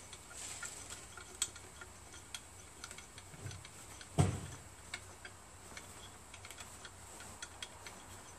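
Irregular metallic ticks as a bolt and washer are turned by hand into the head of an air compressor pump, threading in over the new gasket, with one louder knock about four seconds in.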